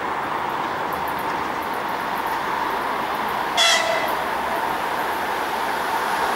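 EP2K electric locomotive and its passenger train approaching with a steady running rumble. About three and a half seconds in, the locomotive gives one short, high-pitched horn toot as a friendly greeting signal.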